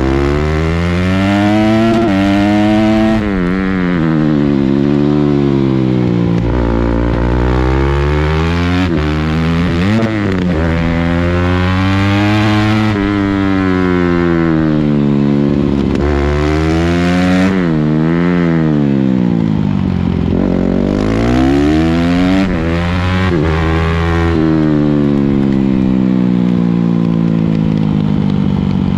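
Honda CRF250R single-cylinder four-stroke motorcycle engine at racing throttle, heard from on board. Its note climbs under acceleration, drops sharply at each gear change and falls away when braking into the corners, over and over, with wind rush over the microphone.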